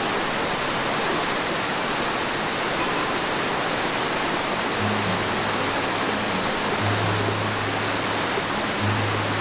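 Steady rushing noise with no clear source. About halfway through, low held notes of background music come in and out.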